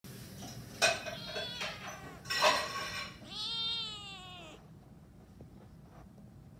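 A kitten meowing three times, the last call the longest, rising and then falling in pitch: loud, insistent calling for company.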